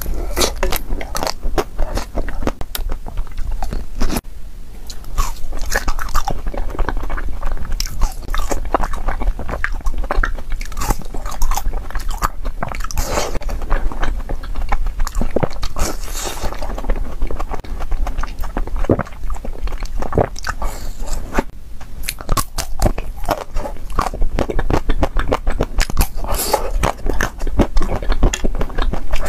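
Close-miked biting and chewing of chocolate-coated ice cream bars, the hard chocolate shell crunching and crackling in many crisp snaps.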